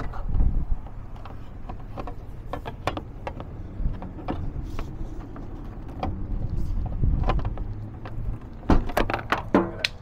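Scattered clicks and taps of a long-reach lockout tool worked through the top of a Ford tow truck's door frame, prodding at the lock and handle inside, with a few louder clicks near the end as the door comes unlocked. A low rumble runs underneath.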